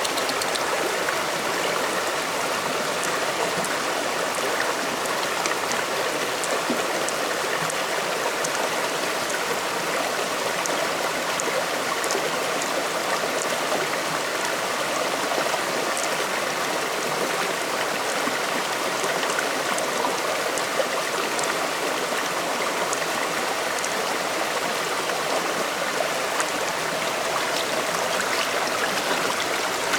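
Flowing stream water rushing steadily, with a few faint small splashes or ticks.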